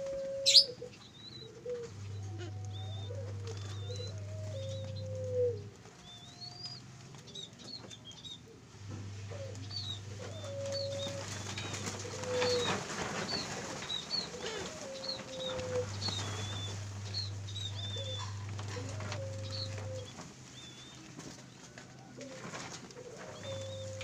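Barbary doves (puter) cooing: short, low coos that fall in pitch, repeated every second or so. High, quick chirps from small cage birds run over them, with a low hum that switches on and off.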